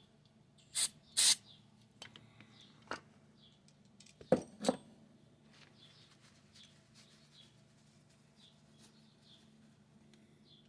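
Cleaning the worn carbon brushes of a small electric motor: two short hissing bursts close together near the start, then two sharp knocks a few seconds later, with a low steady hum beneath.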